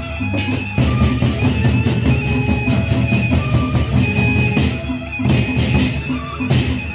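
Gendang beleq ensemble playing live: large Sasak barrel drums beaten in a fast, driving rhythm over rapid cymbal clashes and ringing gong tones.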